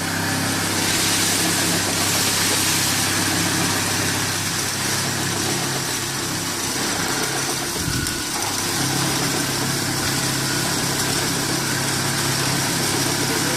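Auger conveyor and auger bag filler running with a steady motor hum. About eight seconds in there is a brief low thump and a short break in the hum.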